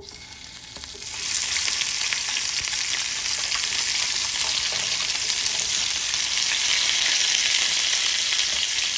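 Sliced carrots and red bell pepper hitting hot oil in a pan and sizzling. The sizzle builds over the first second or so, then holds steady and loud as the vegetables sauté.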